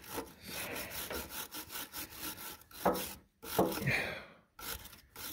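Stainless steel wire brush scrubbing a crimped electrical cable terminal lug by hand in quick repeated scratchy strokes, with two brief pauses a little past the middle. It is taking decades of corrosion off the terminal to bring it back to bright metal for a better electrical connection.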